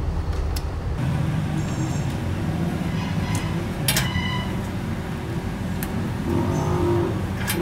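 A steady low rumble throughout, with a few sharp light clicks and clinks of a small screwdriver and wires being worked into a terminal strip.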